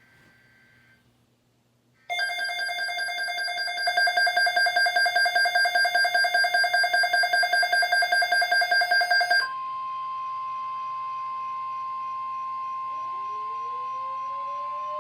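Weather alert radio sounding an alarm for a National Weather Service severe thunderstorm watch. About two seconds in, a loud electronic alert starts, made of several steady tones pulsing rapidly. About nine seconds in it changes to a single steady warning tone of about 1050 Hz.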